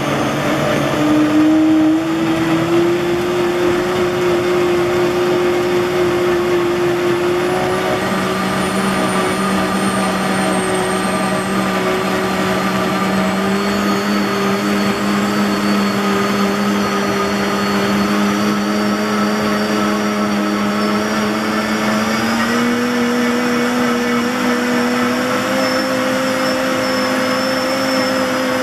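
RawMID Dream Samurai BDS-04 high-power blender (2200 W motor) running at speed, blending fruit, carrot and protein into a smoothie. The motor's whine rises in pitch over the first few seconds and steps up again about two-thirds of the way through as the speed knob is turned up.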